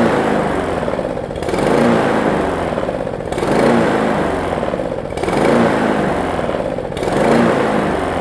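Lawn mower's small engine running unevenly, surging up and dropping back in a regular cycle about every two seconds, hunting rather than holding a steady speed.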